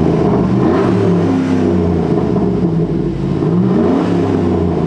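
2007 Chevrolet 5.3-litre V8 revved with the truck standing still, held at about three thousand rpm, its pitch sagging and then climbing again. Heard from inside the cab.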